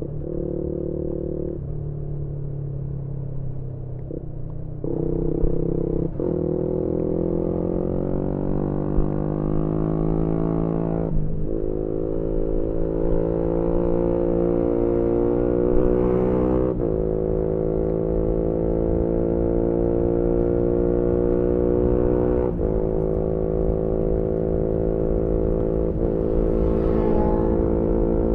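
A 2018 Yamaha MT-125's single-cylinder four-stroke engine, breathing through a GPR aftermarket exhaust, pulling hard through the gears. The note picks up about five seconds in and climbs, dips at shifts about 11 and 17 seconds in, then holds steadier with another shift near 22 seconds. Wind noise rumbles underneath.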